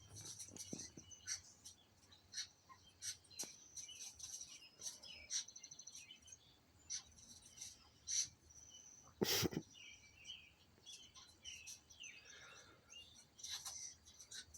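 Small birds chirping and tweeting from a TV bird video: many short, high calls, with a quick trill of repeated notes about five seconds in. A single knock about nine seconds in.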